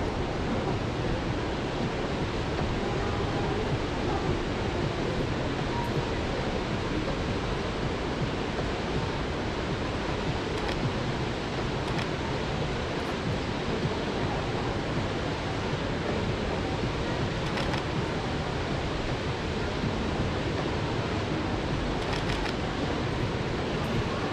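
Steady rushing outdoor ambience with no single clear source. A few faint short clicks sound over it, including a quick cluster near the end: the shutter of a Canon 5D Mark IV DSLR.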